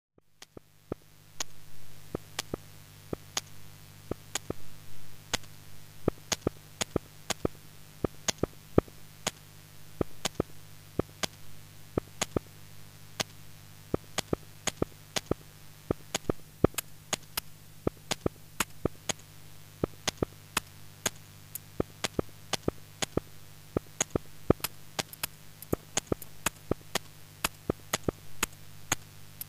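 Opening of a minimal lo-fi electronic track: a steady low hum with sharp, irregular clicks and crackles, roughly two a second.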